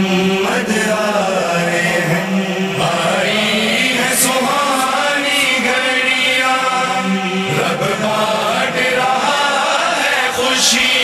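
Male vocal chanting of an Urdu manqabat, a devotional song, in long, drawn-out wavering phrases, a new phrase starting every few seconds.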